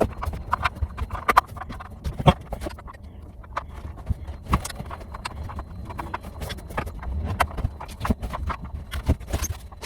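Irregular clicks, taps and knocks of a small pry tool working at the airbag clips in a car's steering wheel, with handling noise.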